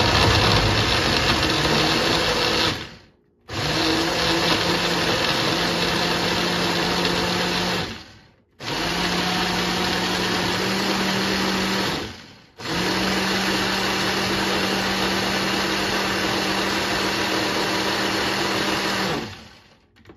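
Electric kitchen blender running in four long bursts with short stops between them. It is chopping green mango, hot peppers, garlic and a little water into mango sour.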